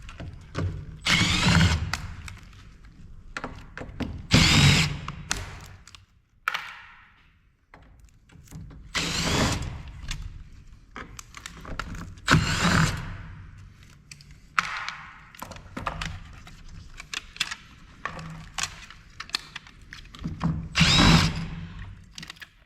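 Power screwdriver running in short bursts, about five times, backing screws out of an LCD monitor's housing, its motor whine rising and falling with each burst. Clicks and knocks of parts being handled fall between the bursts.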